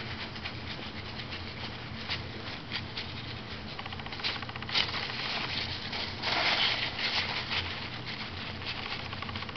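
Polystyrene packing peanuts rustling, squeaking and clicking against each other as a cat and a hand shift them about in a box, in scattered bursts with a louder spell of rustling a little past halfway.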